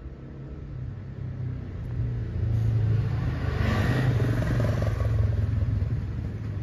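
A motor vehicle's engine rumble that grows louder about two seconds in and stays loud, loudest near the middle as it passes close by.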